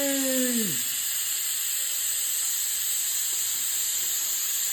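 Pressure cooker letting out its steam in a steady high hiss, the pressure being released before the lid is opened.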